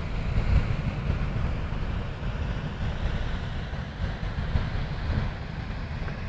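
Wind buffeting the microphone, a heavy irregular low rumble, over a steady faint hiss.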